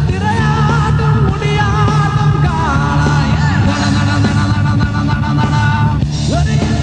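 Live rock band playing: a male singer's yelled, wavering vocal over electric guitar and drums.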